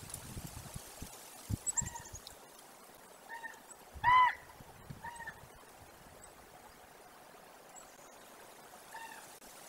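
A series of short, honk-like animal calls, each a brief rise and fall in pitch, with one much louder call about four seconds in. A few soft low thumps come near the start.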